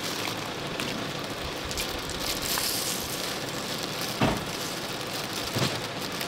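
Oil sizzling and crackling steadily on a griddle as hotteok fry, with two short knocks about four and five and a half seconds in.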